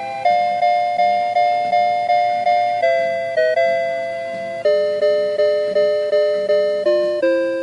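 Kintetsu limited express chime melody: a gentle electronic bell-like tune of two-note chords struck about three times a second, each note fading before the next, with the melody stepping gradually downward in pitch.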